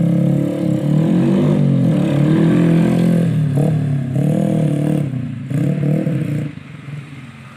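Old-style trail motorcycle engine revving up and down in several pulls of the throttle as it is ridden away, dropping briefly twice between pulls and fading near the end.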